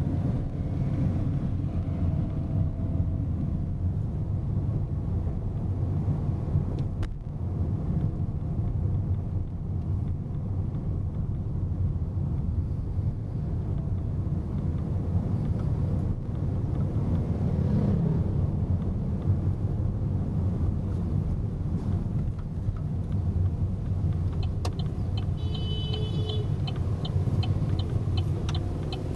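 Steady engine and road rumble of a car heard from inside its cabin while driving. Near the end a regular ticking starts, as the turn indicator is on for a turn at a junction, with a brief high-pitched beep among the ticks.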